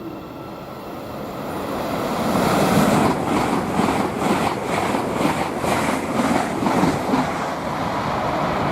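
Passenger train passing close by on the main line, building over the first three seconds into a loud, steady rush of wheel and rail noise with a regular beat of wheels over the rails, and wind buffeting the microphone in its wake.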